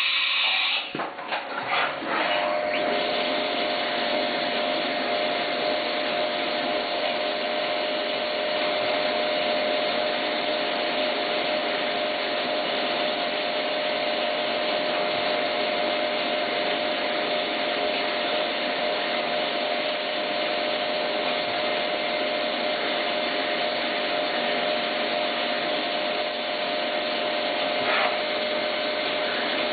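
CNC milling machine cutting aluminum at high speed under mist coolant: a steady hiss of cutting and coolant spray with a steady tone from the spindle and cutter that settles in about two seconds in. A short click sounds near the end.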